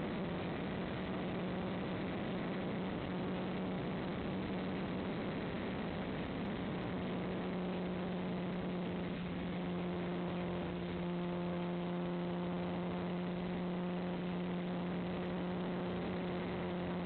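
Steady motor hum of an FPV model aircraft in flight, one constant tone with overtones over a steady rushing hiss.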